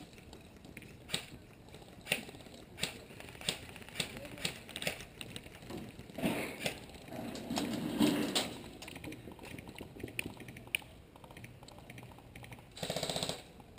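Footsteps on dry, hard-packed dirt at a walking pace, each step a short crunch or click. There is a louder rustling stretch about six to eight seconds in and a brief buzzy sound near the end.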